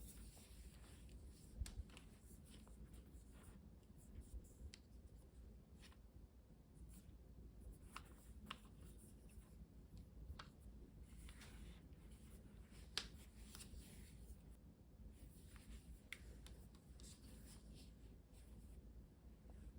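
Faint scattered clicks, taps and soft rustles of hands handling headphones and their packaging, with one sharper click about thirteen seconds in.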